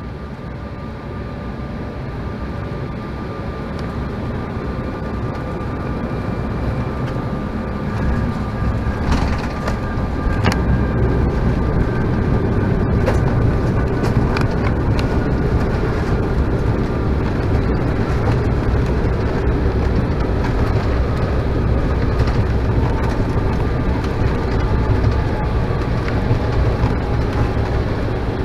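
Airliner cabin noise inside an Embraer E175 regional jet on a gusty landing approach: steady jet engine whine over heavy airflow rumble. It grows louder over the first ten seconds, a few sharp knocks come about nine to thirteen seconds in, and a deeper rumble holds after them.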